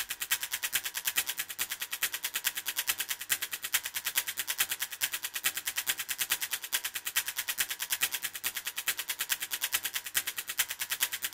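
Rapid, even ticking, about seven or eight high-pitched ticks a second, holding a steady pace throughout.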